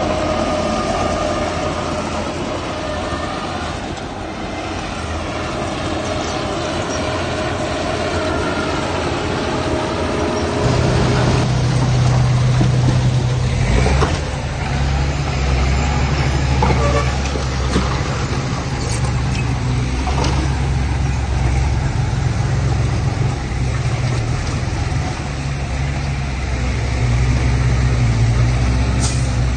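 Heavy diesel earth-moving machinery, a bulldozer and dump trucks, running steadily. A deep engine hum comes in strongly about a third of the way through, with a few short metallic clanks.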